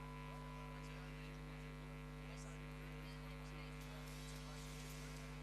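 Faint, steady electrical mains hum made of several constant tones, with no other sound.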